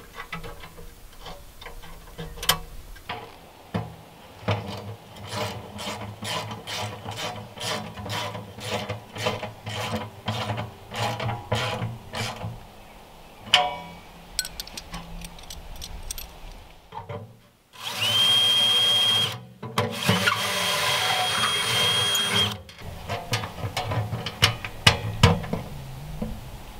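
A ratchet wrench tightening bolts on a steel door, clicking in an even run of about two strokes a second. About two-thirds of the way through, a cordless drill runs in two bursts, its whine rising and then holding, the second burst longer. More ratchet clicks follow near the end.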